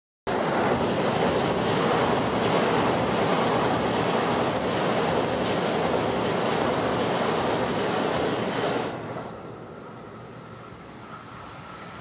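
Steady rushing outdoor noise, loud until about nine seconds in, then dropping suddenly to a quieter hiss.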